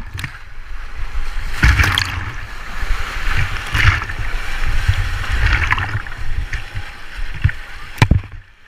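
River water rushing and splashing around a paddle raft, in surges about every two seconds, with wind buffeting the microphone and a sharp knock about eight seconds in.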